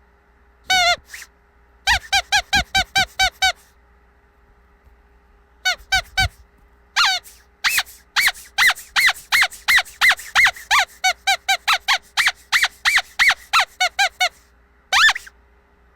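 Squeaky dog toy squeezed over and over, each squeeze a short high squeak that bends in pitch. There are quick runs of squeaks with short pauses between them, the longest a fast run of about seven seconds, and one last squeak near the end.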